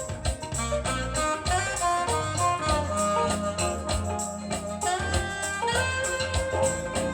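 A vinyl record playing on a Thorens TD 165 turntable, heard through hi-fi speakers: music with sustained notes and a steady beat.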